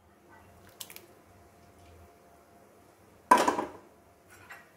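A single short wet plop as a ground spice paste is tipped from its bowl into a pot of cooked vegetable kootu, about three seconds in, after a couple of faint clicks.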